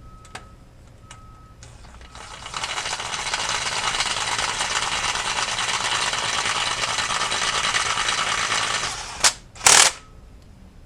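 A power tool running steadily for about seven seconds, then cut off and triggered twice more in two short loud bursts near the end.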